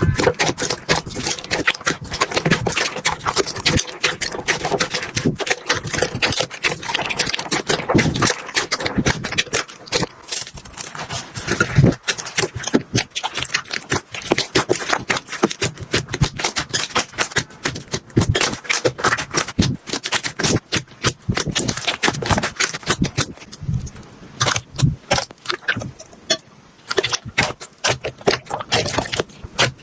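Slime being squeezed, stretched and poked by hand: a dense, unbroken run of sticky clicks, pops and crackles, dipping briefly near the end.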